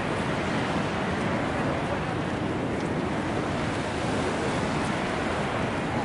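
Steady rushing water, an even wash of noise without distinct surges.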